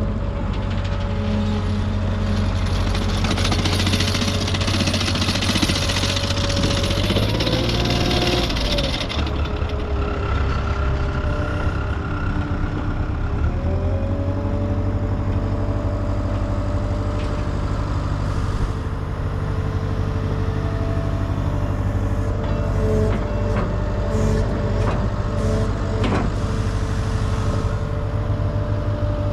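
Diesel engine of a 2018 ASV RT120 tracked skid steer running steadily, with a rushing hiss from about two to nine seconds in. The engine pitch dips and climbs back around nine and fourteen seconds in, and a few sharp clicks come near the end.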